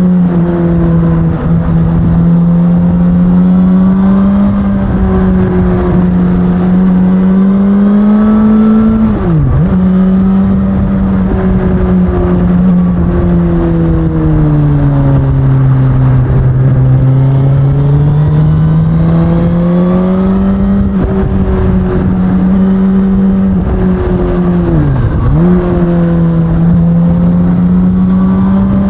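Stock 2019 Suzuki Katana's 999 cc inline-four engine running under way, its pitch rising and falling slowly with the throttle. Twice its pitch dips sharply for a moment and comes straight back.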